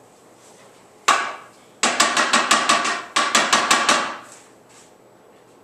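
A single sharp knock, then a quick run of sharp taps with a slight ring, about seven a second for roughly two seconds.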